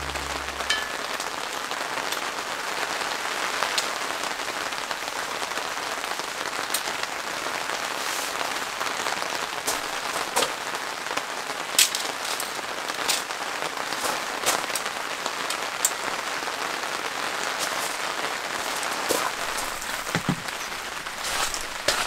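Steady rain falling, with scattered sharper drop hits standing out now and then.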